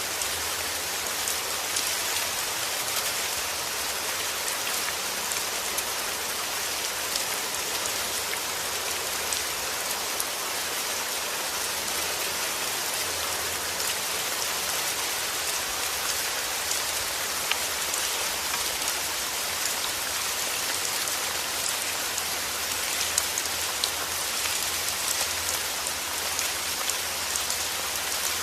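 Steady heavy rain falling, a dense even hiss with many small sharp drop ticks.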